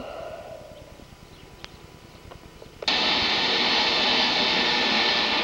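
Engine of a six-wheel amphibious ATV starting suddenly about three seconds in, then running steadily and loud. A few faint clicks come before it.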